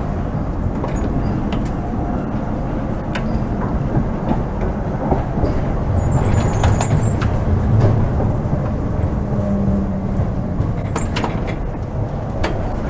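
Old Lohner-built Vienna tramcar running along the track, heard from the driver's cab: a steady low rumble of wheels and traction motors with scattered clicks and knocks. Brief high squeaks come about six to seven seconds in and again near eleven seconds.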